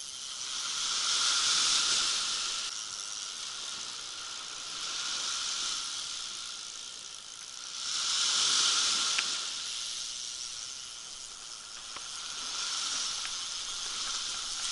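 Small waves breaking at the shore and washing up and back over a shingle beach: a hissing wash that swells and fades about every three to four seconds.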